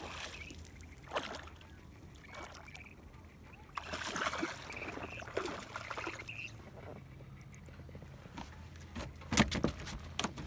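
A hooked rainbow trout splashing at the water's surface and being handled aboard a small aluminium fishing boat, over a low steady hum. A few sharp knocks against the boat near the end.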